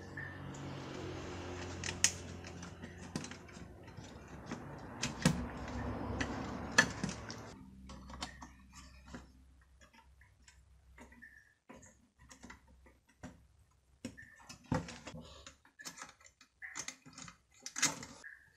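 Light clicks and taps of a screwdriver, terminal screws and wire ends as wires are fastened to the terminals of an infrared-cooker heating plate. A steady low hum with a hiss under it runs through the first seven seconds or so, then stops.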